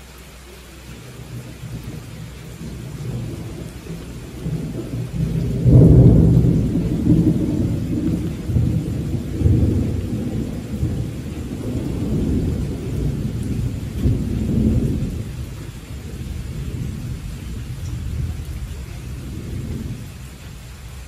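A long roll of thunder over steady rain: a low rumble builds for several seconds, jumps sharply to its loudest about six seconds in, rolls on in waves and fades out near the end, with the rain's even hiss underneath.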